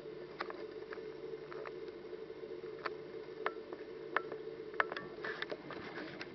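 European goldfinches feeding on sunflower seed heads: irregular small, sharp clicks and ticks of seeds being worked, bunching into a quick cluster about five seconds in, over a steady low hum.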